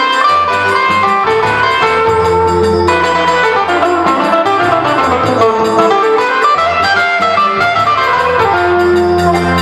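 Instrumental music: a plucked guitar melody running up and down over a steady bass line.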